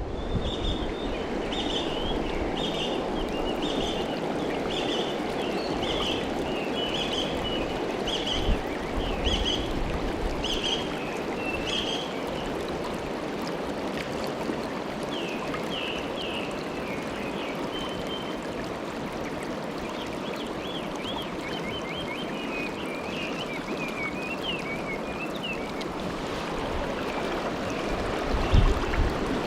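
Mountain river water rushing steadily over rocks. A small bird repeats a short high call about once a second for the first dozen seconds and twitters again in the middle, and a few dull bumps come near the end.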